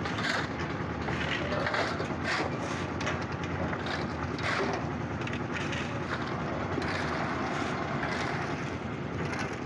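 Concrete mixer running steadily with gravel and cement churning in its drum, over repeated short scrapes of shovels working wet concrete on the roof slab.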